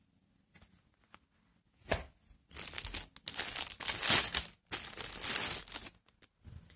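Packaging crinkling and rustling in several loud bursts as a pack of socks is handled and opened, after a near-silent start broken by a single sharp click.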